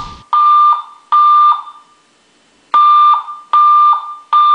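Building fire alarm speaker sounding its evacuation signal: a loud, high beep tone in beeps of about half a second, two beeps, a pause of about a second, then three more.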